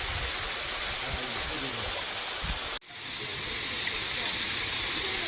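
Steady rushing of a valley stream, water flowing over rocks. The sound cuts out for an instant a little past halfway, then resumes slightly louder and brighter.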